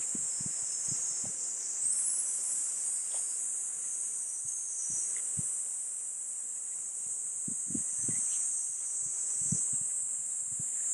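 A steady, high-pitched chorus of summer insects, unbroken throughout, with scattered soft low thuds of footsteps underneath.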